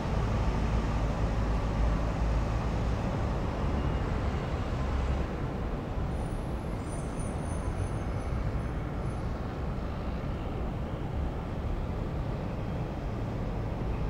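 City traffic ambience: a steady rumble and hiss of road traffic that eases slightly about five seconds in, with a short run of high, thin chirping tones a little past the middle.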